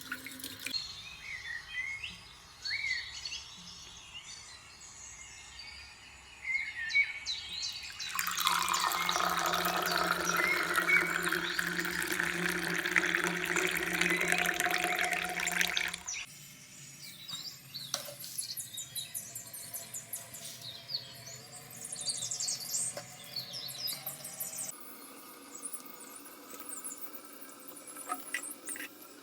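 Birds chirping in the background, then water running from a kitchen tap for about eight seconds, stopping abruptly; faint chirping continues afterwards.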